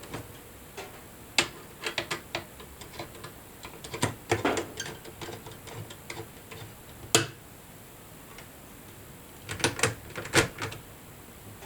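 Screwdriver working the heatsink retaining screws inside a desktop PC: scattered sharp clicks and ticks, with a louder cluster of clicks near the end.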